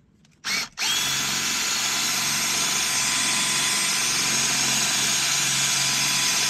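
Milwaukee M12 cordless drill with a step drill bit, drilling out the head of a rivet on a power-seat motor bracket. It gives a short burst about half a second in, then spins up with a rising whine and runs steadily under load.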